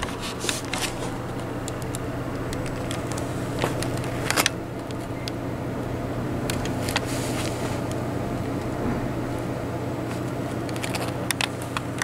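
Steady mechanical drone of a machine running outside, a racket, with a few light clicks and knocks scattered over it.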